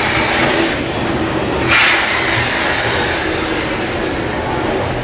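Walt Disney World Railroad steam locomotive hissing steam, with a sudden loud burst of steam a little under two seconds in that fades over about a second.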